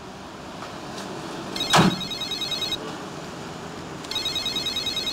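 A phone ringing with an electronic trilling tone: two rings, each a little over a second long, the second near the end. A single loud thump, the loudest sound, lands just after the first ring begins, over steady background noise.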